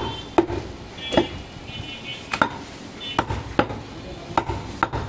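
Butcher's knife chopping goat meat on a wooden chopping block: sharp, irregular knocks, about eight in five seconds.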